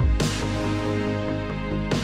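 Electronic background music with deep bass and a steady beat, a sharp hit with a hissy tail about every two seconds.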